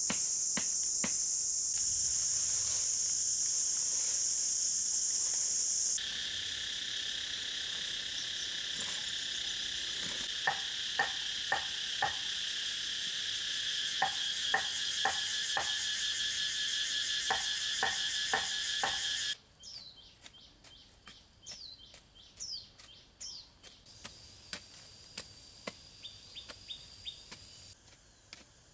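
Loud steady drone of a forest insect chorus, changing pitch at a cut about six seconds in, with runs of sharp strikes as a short-handled chopping tool bites into the soil. After about two-thirds of the way the drone stops and it goes much quieter, leaving short bird chirps and light scraping and ticking as the soil is dug out by hand.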